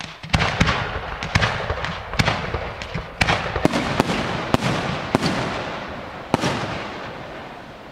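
125 mm aerial display shells fired in a stepped sequence: about a dozen sharp bangs in quick succession, with crackle and echo between them that fades out near the end.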